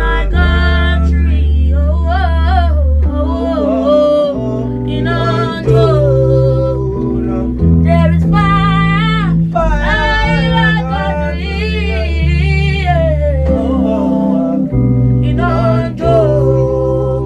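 A woman and a man singing a new song together over a beat with a deep bass line that holds each note for a second or two.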